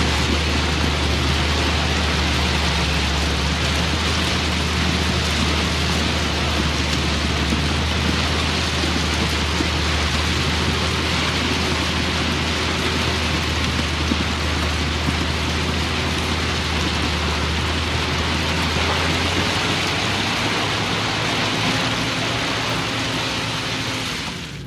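Motor grader's diesel engine running steadily under load while spreading crushed stone, with a constant hiss over the low drone. The engine note drops about twenty seconds in, and the sound cuts off just before the end.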